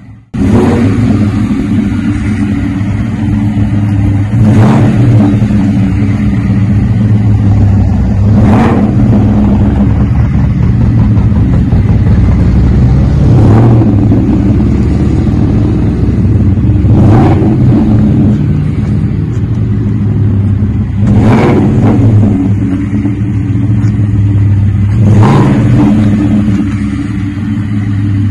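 2019 Ford F-150's 5.0 V8 idling with a deep rumble through a cat-back dual exhaust with a Flowmaster 40 muffler, the factory catalytic converters still in place. The throttle is blipped briefly about every four seconds, six short revs in all.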